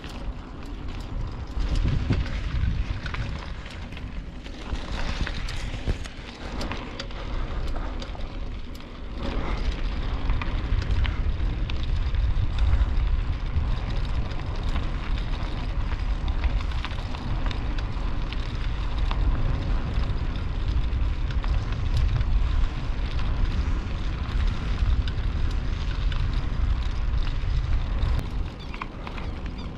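Wind buffeting a small camera microphone: a heavy, uneven low rumble that grows stronger about nine seconds in, with scattered light clicks and rattles.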